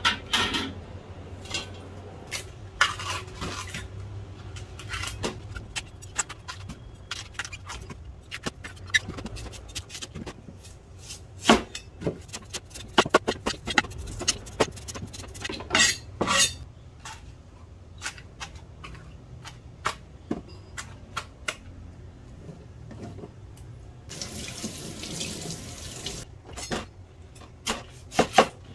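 Kitchen work: a broad kitchen knife knocking down through a peeled white root onto a cutting board in uneven chops, among metal clinks of a steel pot, over a steady low hum. A tap runs briefly near the end.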